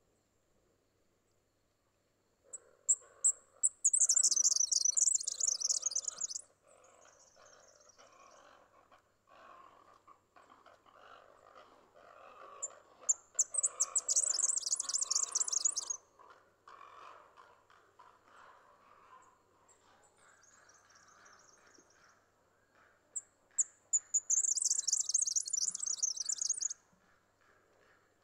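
Red-backed fairywren singing: three bouts of high, rapid reeling trill about ten seconds apart, each opening with a few separate sharp notes and lasting three to four seconds.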